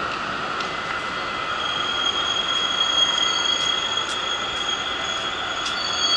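An Ainokaze Toyama Railway 521 series electric train pulls in along the platform and slows. About two seconds in, a high steady squeal from its wheels and brakes sets in over the rumble of the passing cars, with a few light clicks.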